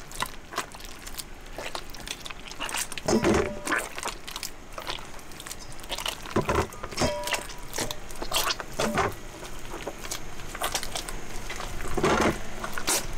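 Wet sourdough dough squelching and squishing irregularly as it is squeezed by hand in a stainless steel bowl, working salted water into the dough.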